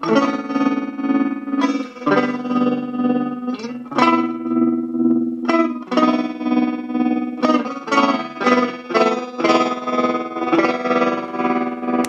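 Electric guitar chords played through a multi-effect pedal of noise, distortion, tremolo and reverb, the tremolo chopping the sustained chords into even pulses about twice a second, with a new chord every couple of seconds.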